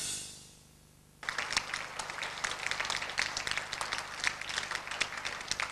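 Background music with drums fading out, then about a second in, a crowd suddenly starts applauding, a dense patter of many claps that keeps going.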